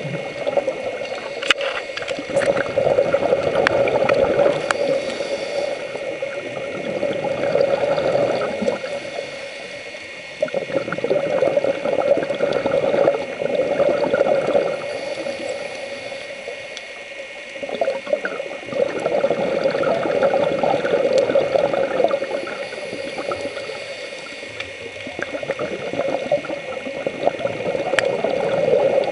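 Scuba breathing heard underwater through the regulator: bubbly, gurgling rushes of exhaled air that swell and fade in a slow cycle every few seconds, with a faint steady high whine underneath.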